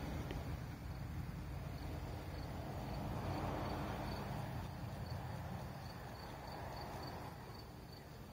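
Outdoor ambience on a phone microphone: a low rushing rumble that swells and eases, with faint crickets chirping steadily in a high, regular pulse.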